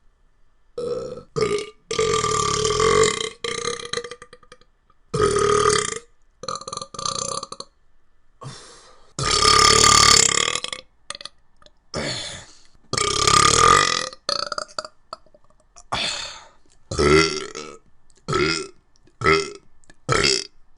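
A person burping over and over: about twenty burps in a row, some short and some drawn out for a second or more.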